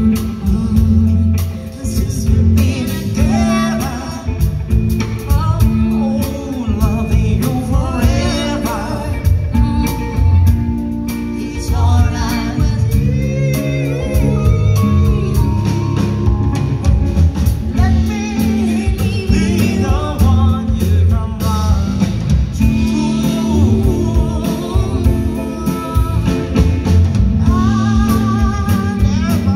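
Live band playing a song: singing over electric guitar and a drum kit, with a steady beat.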